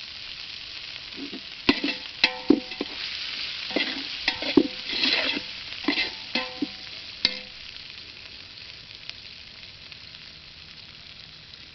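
Sliced onions and spices sizzling in hot oil in a metal pot while a metal ladle stirs them, clinking and scraping against the pot with short ringing knocks. The stirring stops about two-thirds of the way through, leaving only the sizzle.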